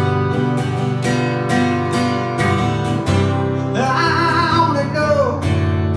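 Strummed acoustic guitar playing a steady rhythm over sustained bass and chords. A sliding melody line comes in about four seconds in and falls away shortly after.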